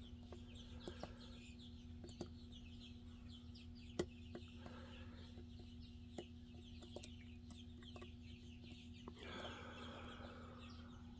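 Faint, sparse clicks of lock picks working the pins inside a Medeco M3 cam lock, the sharpest about 4 s in, over a steady low hum. Faint bursts of short repeated calls come in from the background, the longest near the end.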